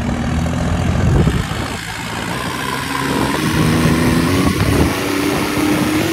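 Modified stunt tractor's diesel engine running as it drives along the road, its note rising in pitch as it pulls harder over the second half.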